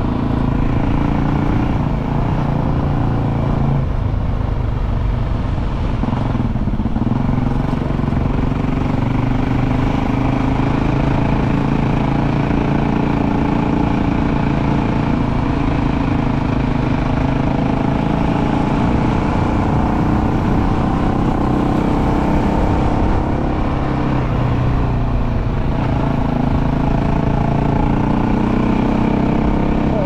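A KTM motorcycle engine running steadily under way, its pitch rising and falling every few seconds with throttle and gear changes.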